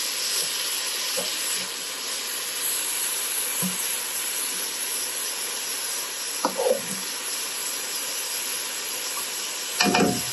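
Ground beef and onion sizzling in a frying pan with a steady hiss while being stirred with a utensil. There are short knocks of the utensil on the pan about six and a half seconds in and again near the end.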